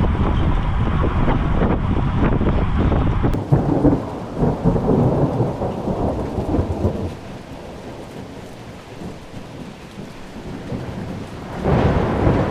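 Rainstorm with low rumbling from wind and thunder. The sound changes abruptly about three and a half seconds in, eases off in the middle, and surges loud again near the end.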